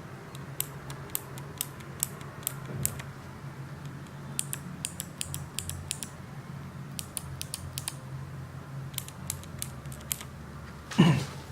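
Clicky mechanical keyboard switches, Kailh BOX clicky and Cherry MX Blue, pressed by hand one at a time. Sharp clicks come singly and in quick pairs, in short groups with pauses between.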